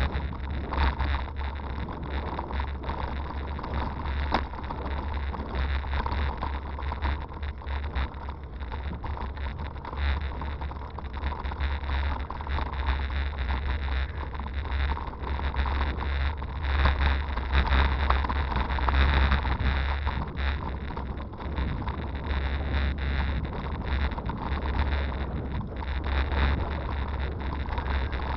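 Riding noise from a hybrid bicycle on a paved towpath: a continuous rumble with wind buffeting the camera microphone and frequent small knocks and rattles from the ride.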